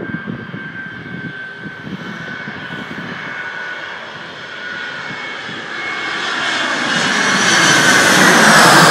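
Twin-engine jet airliner on landing approach with gear down, flying low overhead. Its turbofan whine and rumble grow steadily louder, peak near the end and bend slightly lower in pitch as it passes over.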